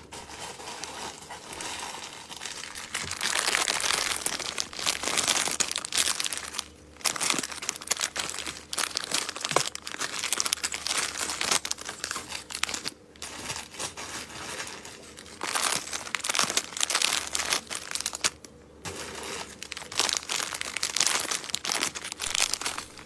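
Plastic packaging crinkling as packs of craft supplies are handled, in irregular stretches with a few short pauses.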